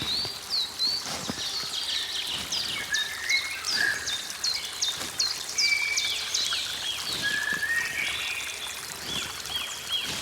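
Several songbirds singing and chirping together in a forest dawn chorus, with runs of quick downward-swept notes about halfway through, over faint trickling water.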